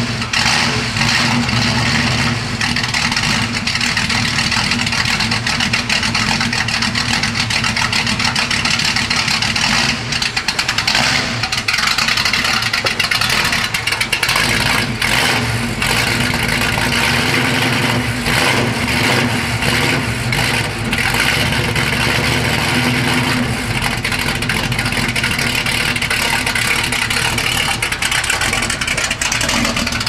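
1970 Camaro SS V8 engine running at low speed while the car is driven slowly across the floor, a steady loud exhaust note with small rises in revs.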